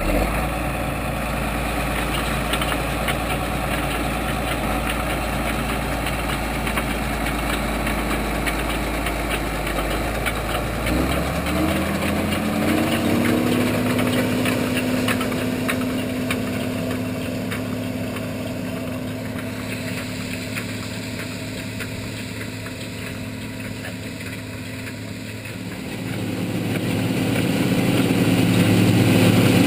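Case tractor's diesel engine running steadily. About eleven seconds in its pitch rises as it revs up, then holds at the higher speed. Near the end it grows louder.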